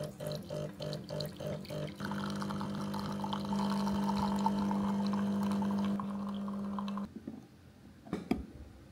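De'Longhi espresso machine's pump brewing a shot of espresso into a glass mug: the pump first pulses about four times a second, then runs steadily with a hiss of pouring coffee, and cuts off suddenly about seven seconds in. A single knock follows near the end as the portafilter is handled.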